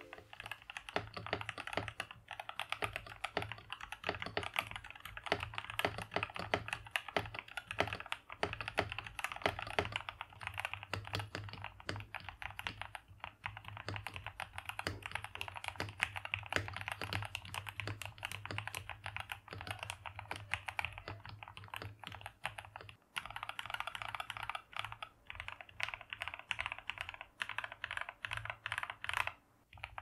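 Yunzii YZ75 mechanical keyboard being typed on quickly and continuously, with a dense run of keystrokes and a couple of brief pauses in the last third. It has tape-modded Gateron G Pro Black linear switches, PBT Cherry-profile keycaps and pre-lubed stock stabilizers.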